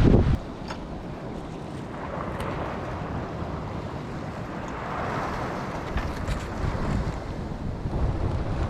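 Wind buffeting the microphone, heavy for the first moment and then dropping sharply, over the steady wash of sea surf against rocks that swells about halfway through and again near the end.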